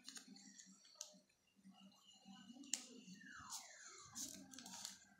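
Faint crinkling and scattered clicks of folded paper being handled as pieces of a paper plane are pushed into each other's slots, with a short falling tone a little after the middle.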